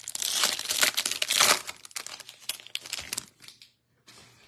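Foil wrapper of a Topps Stadium Club Chrome baseball card pack being torn open and crinkled by hand. The crinkling is loudest in the first second and a half and dies away about three and a half seconds in.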